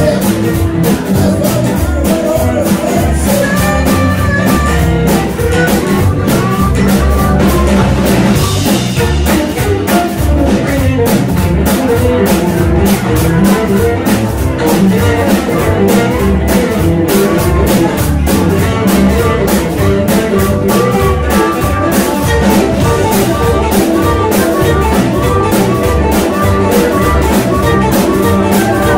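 Live blues band playing: electric guitar over a drum kit keeping a steady beat.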